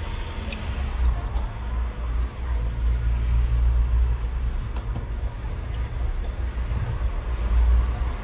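A steady low rumble, with a few small sharp clicks from a precision screwdriver driving screws into a phone's midframe.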